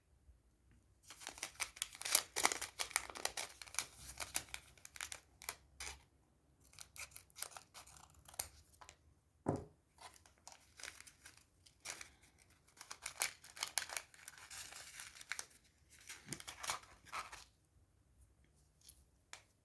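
A small packaging bag being opened by hand: repeated bursts of crackly rustling and tearing, full of sharp little ticks, starting about a second in and stopping near the end.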